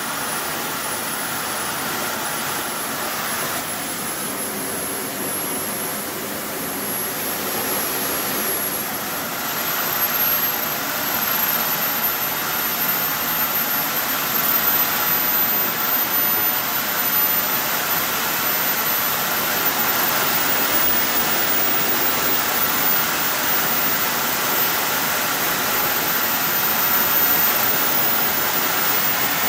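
Small see-through turbojet engine running with a loud rushing noise and a thin high whine that climbs steadily in pitch as the turbine spools up. It gets louder about ten seconds in.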